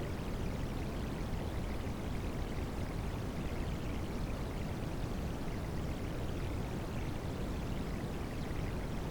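Recorded rain-sound water noise mixed with white noise, a deep, even rushing hiss with no breaks or changes.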